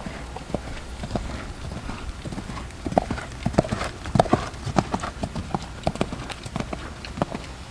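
Hoofbeats of a chestnut hunter horse trotting on sand arena footing, a string of sharp strikes that grow louder as the horse passes close about three to five seconds in.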